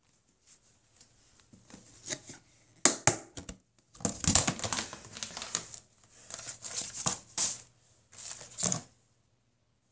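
Crinkling and rustling of things being handled close to the microphone, coming in irregular bursts, with a couple of sharp knocks about three seconds in.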